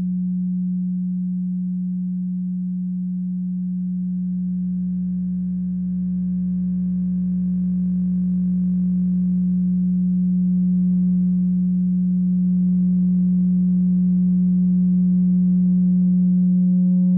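A steady, low electronic drone tone, held without a break and slowly swelling louder, with faint higher tones above it; a higher tone joins near the end.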